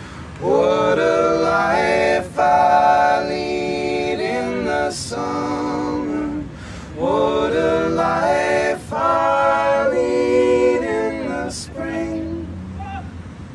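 Singing voices, in phrases a few seconds long separated by short breaks.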